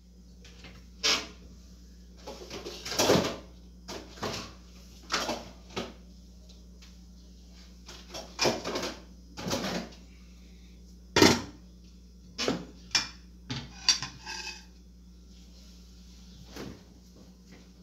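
Kitchen cupboard doors and cookware being handled: a string of separate knocks and clatters, about a dozen, with short quiet gaps between them.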